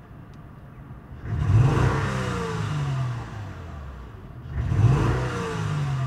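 A 2003 Acura TL Type S's 3.2-litre V6, heard from inside the cabin, revved twice by quick throttle snaps. Each rev rises quickly and falls away over about two seconds. The engine has an obvious misfire from a dead cylinder.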